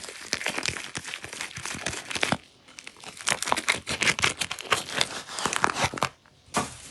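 Soap packaging being crinkled and torn open by hand, in two long stretches of dense crackling with a short pause between, then one brief crinkle near the end.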